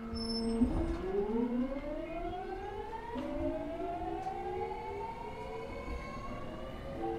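JR E217 series train's Mitsubishi GTO-VVVF inverter and MT73 traction motors accelerating: a steady low whine for about half a second, then whines that climb in pitch, drop back about three seconds in and climb again as the inverter changes modes.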